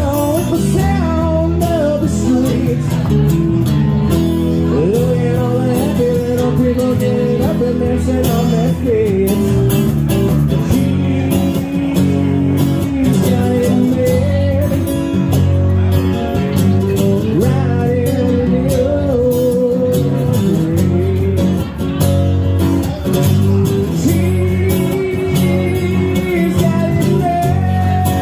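Live band playing a song: strummed acoustic guitar and electric bass with a man singing the melody into a microphone.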